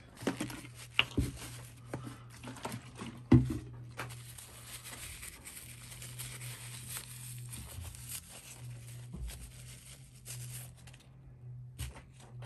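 Paper crumpling and rustling as hands handle it around a small brass carburettor main nozzle, with a few knocks on a wooden bench in the first few seconds, the loudest about three seconds in.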